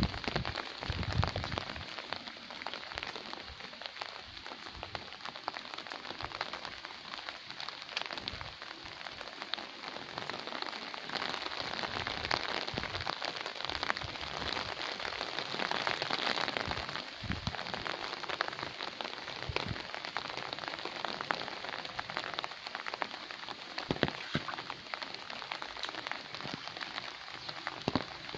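Steady rain falling on garden plants: an even hiss with many scattered sharper drop hits. A few low thumps come in the first second or two.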